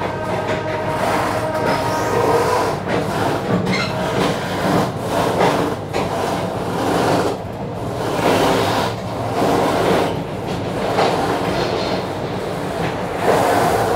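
Passenger train rolling along the track, heard from inside the coach: a steady rumble of wheels on rails broken by irregular clacks.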